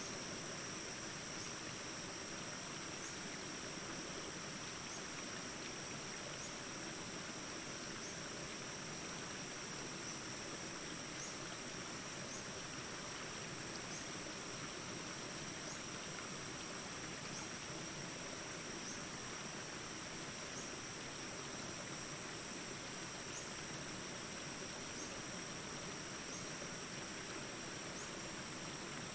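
Steady high-pitched insect chorus, a continuous trilling drone with faint short chirps recurring about every second and a half.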